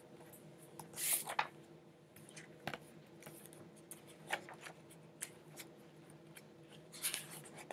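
Paper rustling as a picture book's pages are handled and turned, a series of short rustles with the loudest about a second in and another near the end.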